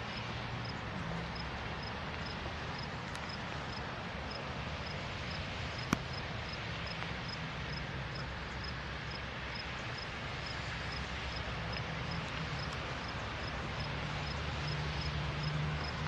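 Diesel locomotives of an approaching freight train, a low engine rumble that grows louder near the end. A faint high tick repeats about twice a second throughout, and a single sharp click sounds about six seconds in.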